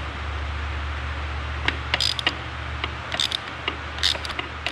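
Ratchet with an 8mm socket backing out the shift-lever pinch bolt: irregular sharp clicks from about a second and a half in, over a steady low hum.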